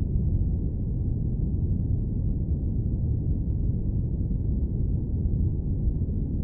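Steady airplane noise played as white noise: a deep, even rumble with no distinct tones, no high hiss and no changes.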